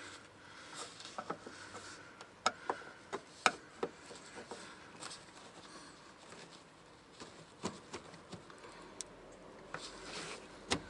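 Flathead screwdriver prying and scraping at a fuel pump access cover held down by sticky sealant, giving scattered sharp clicks and taps.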